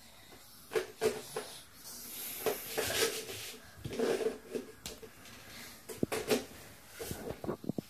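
Plastic Lego bricks and pieces clattering and knocking together, with scattered sharp clicks and a few longer rattling stretches in the middle.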